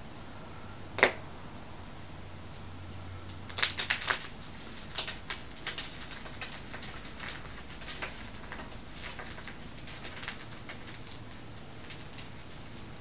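Crunchy pressed-powder pumpkin bomb snapped in half with one sharp crack about a second in, then crunching loudly in a quick cluster as it is crushed in the hands around four seconds in. Scattered softer crumbling crackles follow as the pieces are ground between the fingers.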